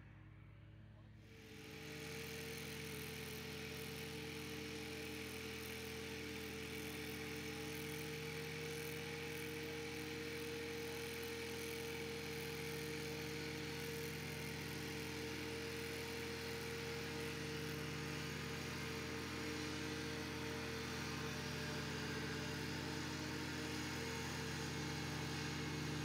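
Zero-turn riding mower's engine running steadily at an even pitch while it mows tall grass. It starts about a second and a half in and grows slowly louder as the mower comes closer.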